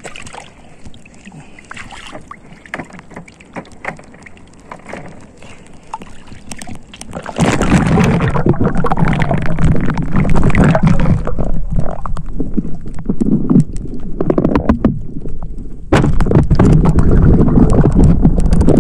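Seawater sloshing and gurgling right at the microphone as a spearfisher swims: quieter with scattered small knocks at first, then suddenly loud and rushing from about seven seconds in, with a short lull near the end.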